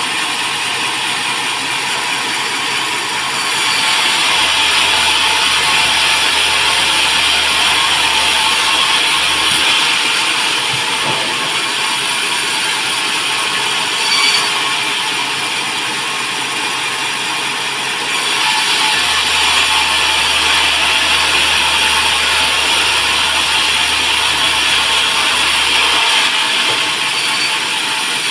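Band sawmill running and cutting teak, a steady mechanical noise that grows louder for two long stretches of several seconds each.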